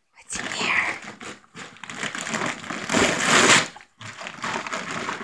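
Gift wrapping paper crinkling and tearing as a pit bull rips open a present with its mouth, in several bursts with short pauses between, loudest about three seconds in.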